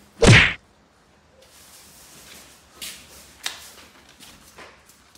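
A short, loud bump about a quarter second in, followed by a few faint knocks and rustles as a large cardboard box is handled and carried.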